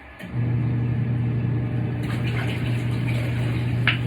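Portable twin tub washing machine's motor switching on a moment in and running with a steady low hum, water churning in the tub. A short click near the end.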